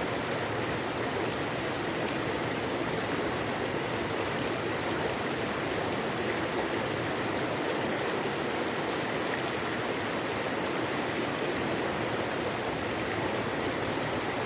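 Steady rushing of river water, an even, unbroken wash of noise.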